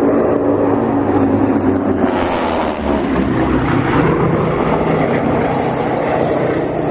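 Airplane engine running loud and steady as an aircraft flies past, its pitch sliding about two to three seconds in.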